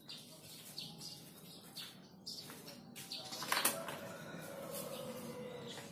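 Quiet outdoor background with scattered knocks and rustling as a person walks up to a parked scooter and takes hold of it; the loudest knock comes about halfway through. The scooter's engine is not yet running.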